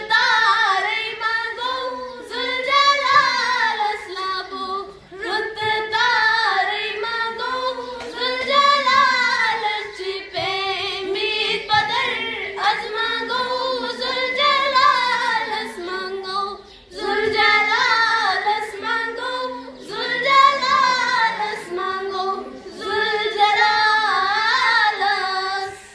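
A schoolgirl singing a melodic song unaccompanied, with wavering held notes, in phrases broken by short pauses for breath.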